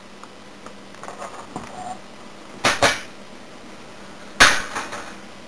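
Xbox 360 plastic casing being pulled apart by hand, giving two sharp clacks a little under two seconds apart with faint small ticks between.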